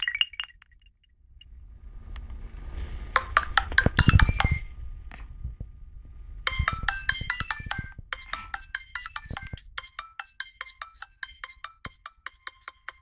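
A Nokia 515 mobile phone's loudspeaker. One ringtone cuts off at the start, followed by a few seconds of clicks and handling noise. About halfway through, the next ringtone begins: a quick melody of short, plucked-sounding notes stepping up and down in pitch.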